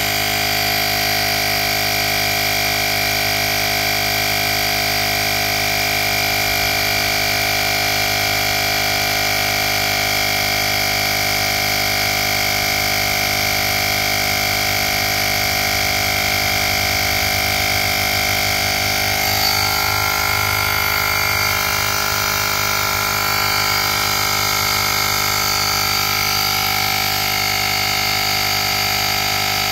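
JM-8817 portable digital air compressor running steadily as it pumps up a tyre toward its 40 PSI set point, a constant mechanical hum. Its tone shifts up slightly about two-thirds of the way through.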